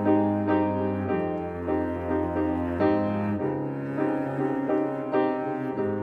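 Piano music: slow chords struck about twice a second over deep held bass notes that change a few times.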